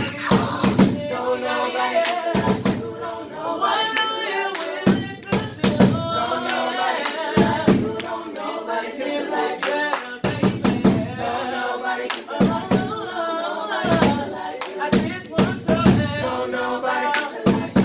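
Group of voices singing a cappella in harmony, with sharp percussive hits landing every second or so.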